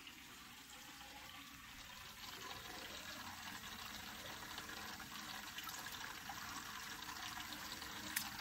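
Water running and splashing in a reef aquarium's sump, a steady low rush that grows louder about two and a half seconds in; a short click near the end.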